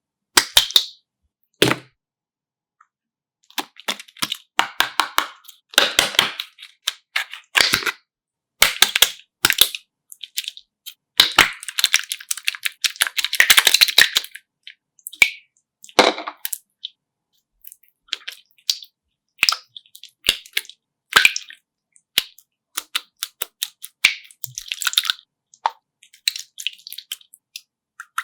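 Irregular bursts of crackling and clicking, some sharp and single, others running for a second or two.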